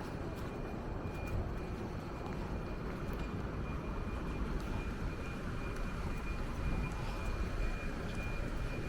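Steady rumble of distant engine noise, with a faint constant high-pitched whine over it.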